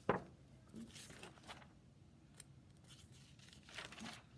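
Pages of a large paper big book being opened and turned: a sharp paper flap right at the start, then softer paper rustles about a second in and again near the end.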